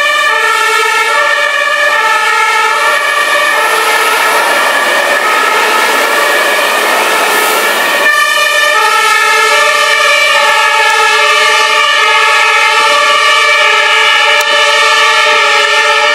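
German two-tone fire engine sirens (Martinshorn) sounding as Scania fire engines pull out, alternating between a high and a low note. About halfway in the sound cuts, and after that several sirens overlap out of step.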